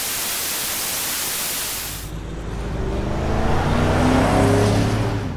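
A static-like hiss for about two seconds, then a car engine revving up, growing louder and cut off suddenly at the end.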